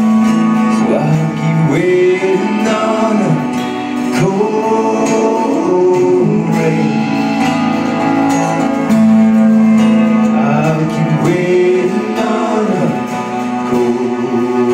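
Live band playing: a male singer with acoustic guitar, backed by cello, electric guitar, drums and keyboard.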